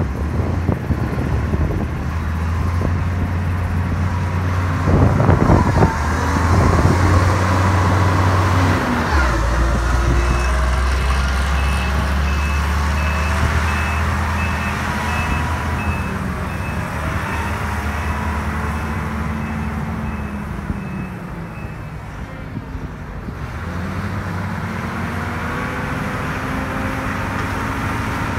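Heavy diesel engines of snow-removal machinery running under load, their pitch rising and falling. A vehicle's reversing beeper sounds in a steady run of beeps from about ten seconds in for roughly twelve seconds.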